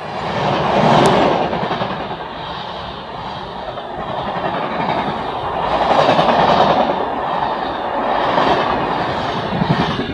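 Passenger coaches of an express train passing at speed, a loud rush of wheels on rails that swells and fades as the coaches go by. The sound drops off sharply near the end as the last coach passes.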